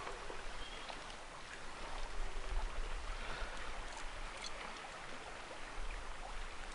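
River water running steadily: an even rushing hiss.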